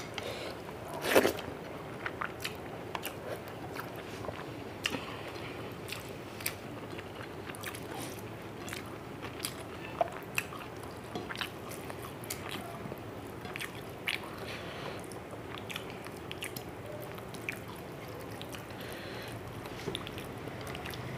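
Close-up eating sounds of someone eating rice and fish curry by hand: chewing with many short, sharp mouth clicks, and fingers mixing rice in curry on a plate. The loudest click comes a little over a second in.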